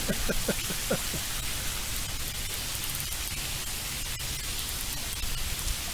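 Heavy rain pouring down, a steady hiss with faint scattered drop ticks.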